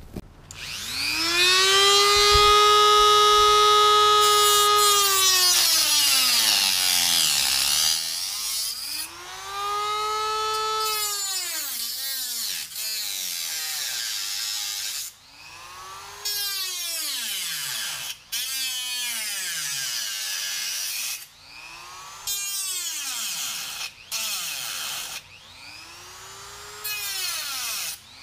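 Dremel rotary tool with a carbide cutting wheel cutting sheet steel, its high whine rising as it spins up and sinking as it slows. One long run of about six seconds is followed by a string of shorter runs a few seconds apart.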